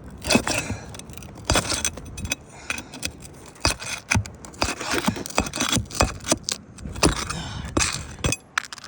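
A metal tool scraping and clicking under asphalt roof shingles as roofing nails are pried loose and pulled through, in irregular sharp clinks and scrapes.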